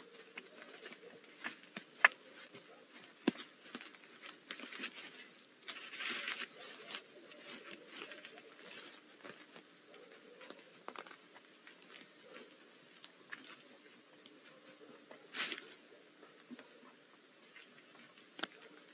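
Wood shavings in a nest box rustling and crackling under a brooding owl as it shifts on and tends its eggs, with scattered sharp clicks, the loudest about two seconds in.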